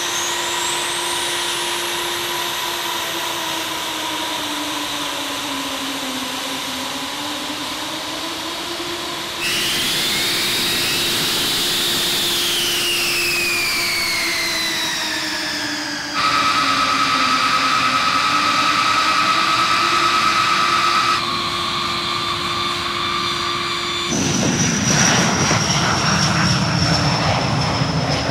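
Boeing B-52 Stratofortress's jet engines whining at high pitch, spooling up and sliding in pitch across several cut-together clips, then a loud jet roar at full power for takeoff near the end.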